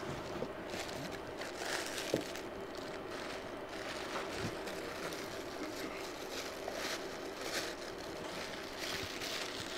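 Steady background hum of equipment in the room, with faint scattered clicks and rustles and one sharper click about two seconds in.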